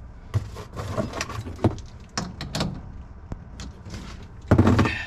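A run of light clicks and knocks, then one louder thump about four and a half seconds in.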